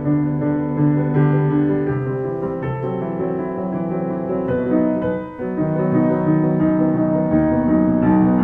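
Steinway & Sons grand piano played solo: a flowing melody over sustained, overlapping chords that change every second or so. The sound thins briefly about five seconds in, then the playing swells again.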